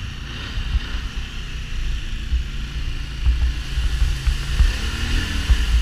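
Off-road vehicle engine running, rising in pitch near the end as it is revved, over a heavy low rumble.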